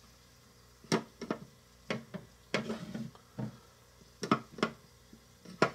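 About ten light, sharp taps and clicks at irregular intervals as chopped mushroom pieces are picked off a small wooden cutting board and dropped into a plastic bowl.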